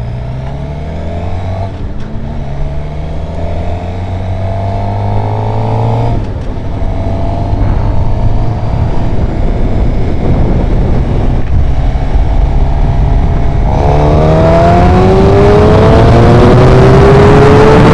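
A 2012 Suzuki GSX-R750's inline-four engine accelerates up through the gears. Its pitch rises in each gear and drops at gear changes about two, six and fourteen seconds in, with the hardest pull in the last gear. A loud rushing noise builds over the last few seconds as speed rises.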